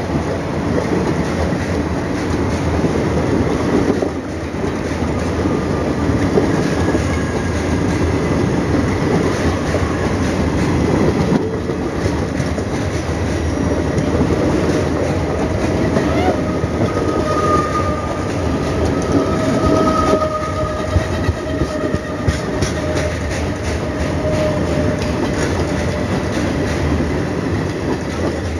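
Blue passenger coaches of an Indian Railways express passing close by at speed: a steady loud rumble with the wheels clattering rapidly over the rail joints. A faint thin whine rides over it for a few seconds past the middle.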